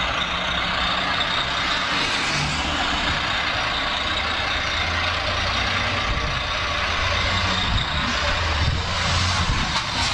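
Highway traffic passing: a steady rush of engine and tyre noise with a low rumble. A box truck drives by close, and the noise grows louder near the end.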